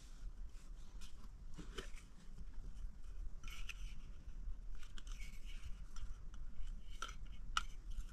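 Small clicks and scrapes of a baby-formula tin being handled: its plastic lid taken off and a scoop scraping in the powder.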